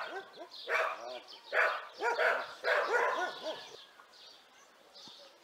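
A dog barking repeatedly, about five barks in the first three and a half seconds, then stopping; faint bird chirps follow near the end.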